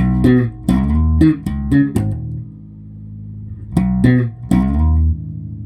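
Electric bass guitar played through an Ashdown Dual Bass Compressor pedal with freshly adjusted settings. A quick run of plucked notes leads into a held note, then another short run about four seconds in, and a final note left to ring.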